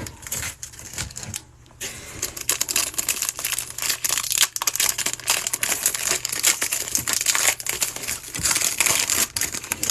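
Foil trading card pack wrapper being torn open and crinkled by hand, a dense crackling that pauses briefly about a second and a half in.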